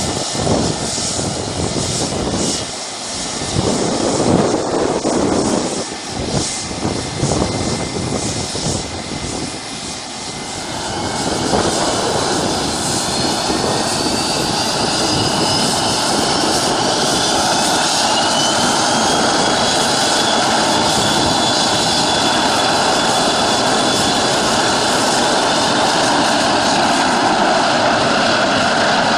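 McDonnell Douglas MD-80-series jet with rear-mounted Pratt & Whitney JT8D turbofans: an uneven rumble at first, then about ten seconds in the engines grow louder and steadier, with a whine that rises in pitch and then holds as they spool up to takeoff power.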